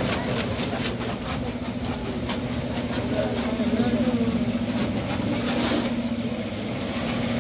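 Pressure washer running with a steady hum, its water jet spraying over a car's body.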